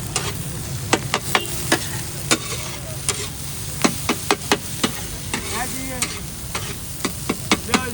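Daal anda tikkis frying in oil with a steady sizzle, while a metal spatula clicks and scrapes against the pan in quick, irregular strokes.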